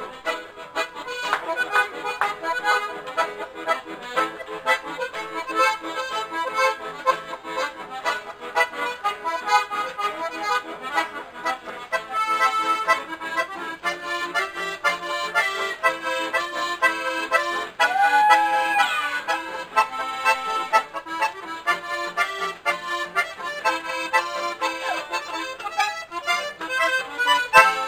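Two piano accordions playing a tune together with a steady beat, accompanied by an acoustic guitar.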